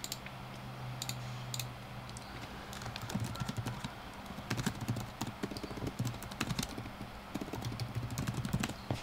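Typing on a computer keyboard in quick runs of keystrokes, after a few separate mouse clicks in the first couple of seconds.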